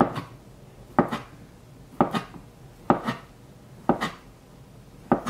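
Kitchen knife slicing a raw potato on a plastic cutting board, about one cut a second. Each cut ends in a sharp knock of the blade on the board, followed by a smaller tick.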